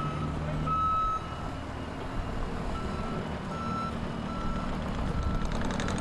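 Reversing alarm on a Case compact track loader, one high beep repeating a little under a second apart, over the low running of its diesel engine.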